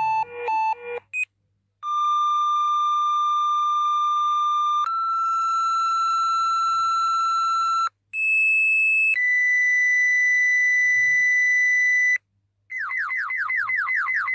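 Electronic emergency-alert tones. Rapid pulsed two-note beeps stop about a second in. After a short gap come long steady tones that step up in pitch in four stages, then after another gap a fast repeating falling whoop near the end, about six sweeps a second. A faint low hum runs underneath.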